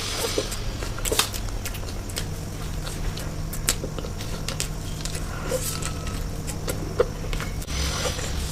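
Close-up eating sounds: scattered crisp clicks and smacks of chewing, irregularly spaced, over a steady low hum.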